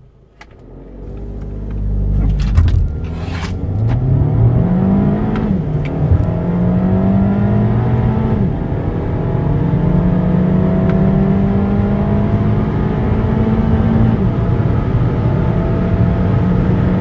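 A car engine accelerating hard from a standstill, its pitch rising through each gear and dropping at three gear changes.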